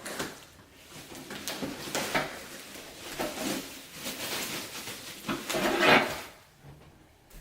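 Rustling and scraping of a shipping box and its packing as the parts of a 2-post server rack are pulled out, with the loudest scrape about six seconds in.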